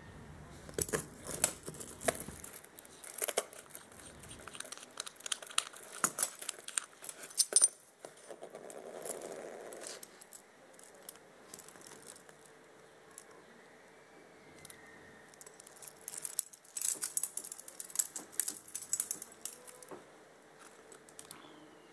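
Stainless-steel watch case and link bracelet clinking and clicking as the watch is handled and its case back is taken off, in two spells of sharp metallic clicks, the first through the opening seconds to about eight seconds in, the second around sixteen to twenty seconds in.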